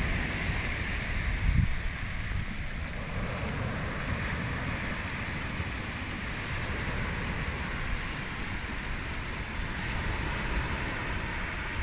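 Steady wash of water: small surf breaking on a beach and muddy runoff streaming over pebbles, with wind buffeting the microphone in a low rumble, strongest about a second and a half in.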